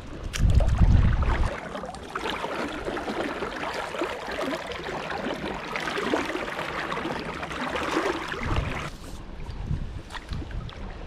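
Paddle strokes in the water and water rushing and splashing around an inflatable stand-up paddleboard moving downriver. A loud low rumble lasts about a second near the start.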